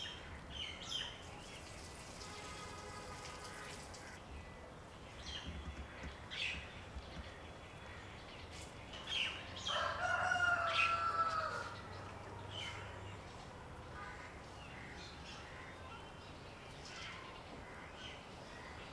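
A rooster crows once about ten seconds in, a call of about two seconds whose pitch drops at the end. A fainter crow comes a couple of seconds in, and short small-bird chirps are scattered around them.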